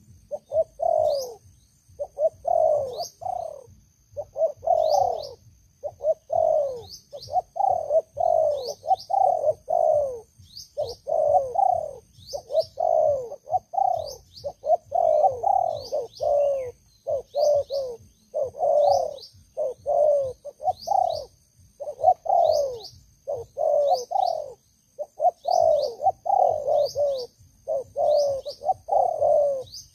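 Spotted doves cooing over and over: short falling coo notes in quick runs with brief pauses. A small bird's high chirps repeat above the coos, over a thin steady high tone.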